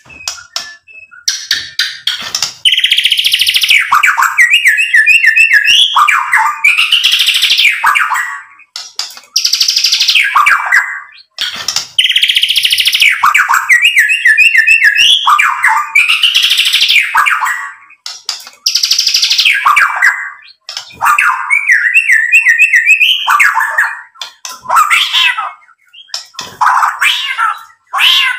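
Male white-rumped shama singing loud, rich song phrases a few seconds long, full of whistles and fast runs of repeated notes, with short pauses between them and a similar phrase coming back about every ten seconds.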